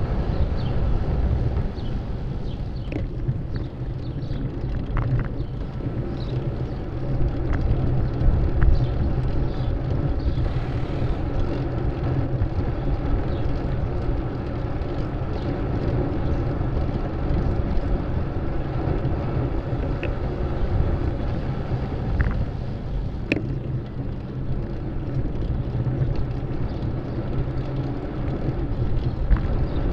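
Steady traffic and riding noise recorded from a bicycle on a city street: a loud, wavering low rumble with a few brief sharp clicks scattered through.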